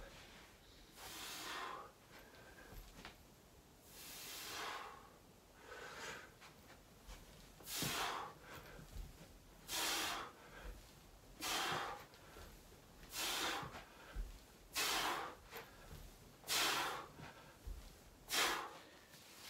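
A man breathing out hard and rhythmically from exertion during fast bodyweight squats and reverse lunges. There is a sharp breath about every one and a half to two seconds, about ten in all.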